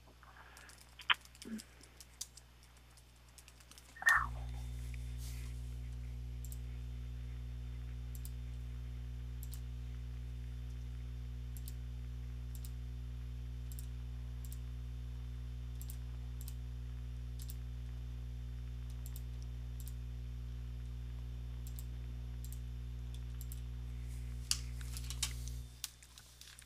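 Computer keyboard typing and mouse clicks, a few a second at most, over a steady low electrical hum that starts abruptly about four seconds in and cuts off near the end.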